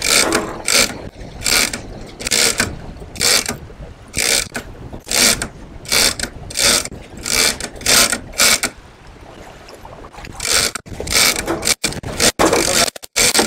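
Shimano Tiagra 130 big-game reel cranked hard against a hooked fish: a gear whirr with each turn of the handle, a little over one a second, pausing briefly about nine seconds in before the cranking picks up again.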